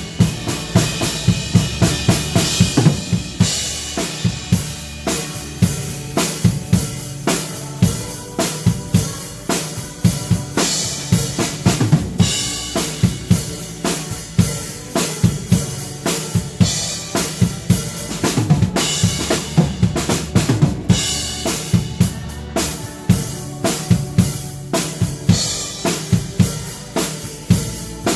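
Drum kit played to a worship song: a steady beat of bass drum and snare with rimshots, and crash cymbals washing in every few seconds.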